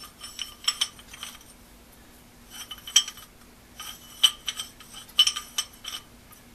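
Steel chisel bit clinking against the hex-bored tool holder of a rotary hammer as the shank is slid and turned in hand. A scattered run of light metallic clicks, the sharpest about three, four and five seconds in.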